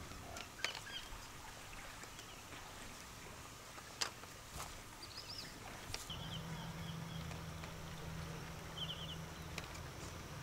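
Duck eggs being picked up and set into a woven bamboo basket, with a few sharp clicks as eggs knock against each other, the loudest about four seconds in. Small birds chirp briefly in the background, and a low steady hum comes in about six seconds in.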